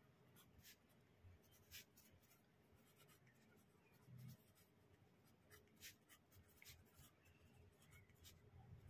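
Pen writing on paper, very faint: short scratching strokes as words are written out by hand.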